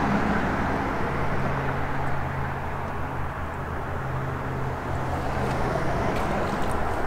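A steady low mechanical hum over a constant rumble. One humming tone comes in about a second in and drops away near the end.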